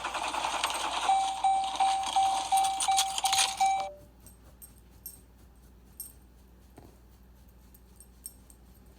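2013 Jeep Grand Cherokee being cranked with the key without the engine starting, while a dashboard warning chime beeps about three times a second. Both cut off about four seconds in, leaving a few faint clicks.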